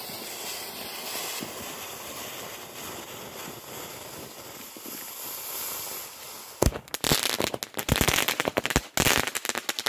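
Small 200-gram consumer firework cake (Premium Kaleidoscope) fizzing with a steady spray of sparks for about six and a half seconds. It then starts firing, with a dense run of loud pops and crackles to the end.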